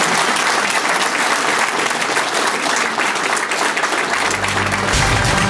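Audience applauding steadily, with many hands clapping. Near the end, low steady music tones begin to come in under the applause.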